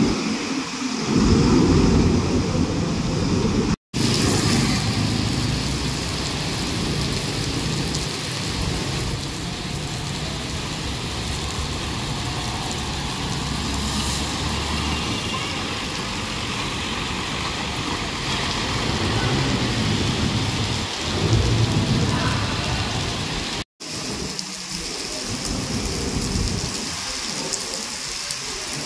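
Steady rain falling, with bus and traffic engine noise passing on a wet road. The sound drops out abruptly twice, where clips are joined.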